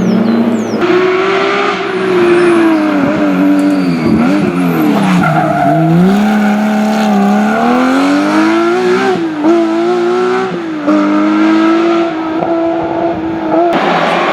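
Historic rally car's engine working through a stage: the revs dip twice as it slows, then climb steadily. An upshift drops the note sharply about nine seconds in, another follows about a second later, and it then runs at steady revs.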